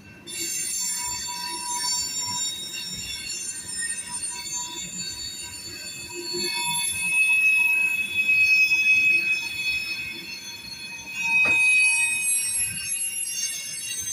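Freight cars of a manifest train rolling past, their wheels squealing in several high, shifting tones over a low rumble. There is one sharp knock about eleven and a half seconds in.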